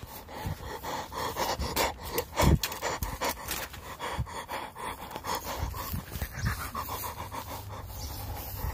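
A person panting hard in short, uneven breaths.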